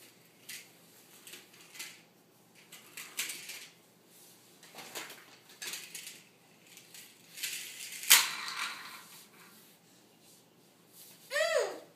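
Scattered light clicks and clatters of small hard objects, with a sharper, louder clatter about eight seconds in. Near the end comes a short high squeal that falls in pitch.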